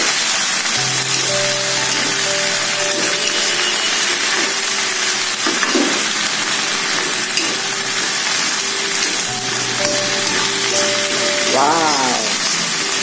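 Katuk leaves and baby corn sizzling in hot oil as they are stir-fried in a wok, with a spatula tossing and scraping them around the pan.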